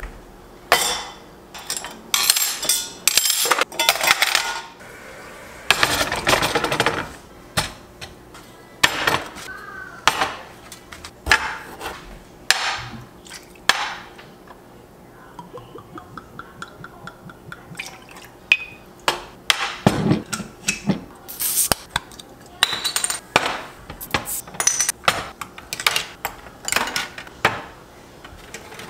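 Clinks and clatter of copper mugs, a glass and bottles being picked up and set down on a kitchen counter while cocktails are mixed. The sounds come as a string of short, separate knocks and rattles.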